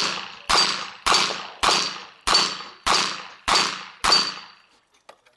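Rapid string of revolver shots fired at steel targets, eight evenly spaced shots about six-tenths of a second apart. Each shot is followed by a short high ring of a steel plate being hit.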